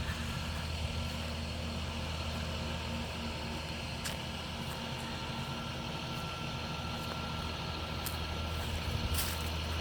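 Heavy truck engine running steadily with a low, even drone and a faint high whine, with a few sharp clicks or knocks partway through and near the end.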